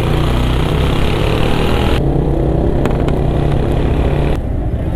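Motorcycle engine running steadily while riding, under a rush of wind and road noise. The hiss above the engine drops off sharply about two seconds in.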